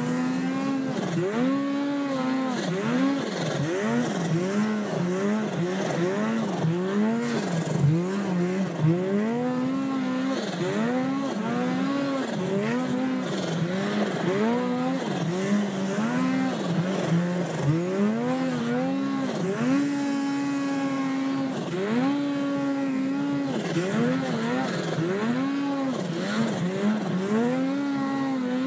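Snowmobile engine under hard load on a steep climb, revving up and down over and over, about once a second, as the throttle is blipped. It holds a steadier pitch for a couple of seconds around two-thirds of the way through.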